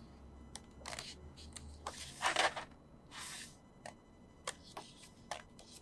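Pages of a thick album photo book being turned by hand: paper rustling with a few light taps and ticks, the loudest rustle about two seconds in.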